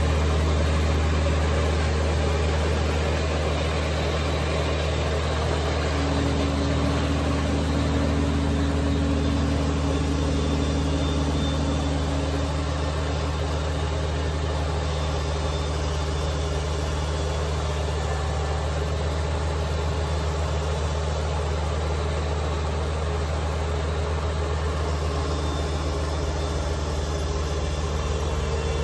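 Kubota BX2380's three-cylinder diesel engine running steadily at high revs, driving the front-mounted BX2816 snowblower as it throws snow. A slightly higher hum rises over it for several seconds about six seconds in.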